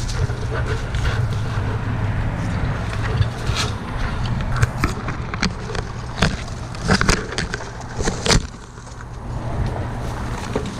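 Tree branches cracking and rustling as they are cut, a run of sharp snaps over a steady low engine hum.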